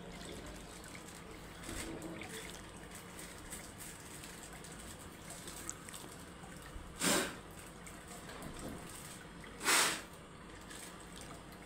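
Faint water sounds over a steady low hum from aquarium equipment. Two short, loud rustles come from a clear plastic fish bag being handled over the tank, about seven and ten seconds in.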